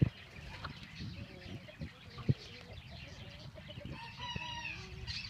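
Young chickens clucking, with a young rooster giving a short, wavering crow about a second long near the end. Two sharp thumps stand out, one at the start and one a little before the middle.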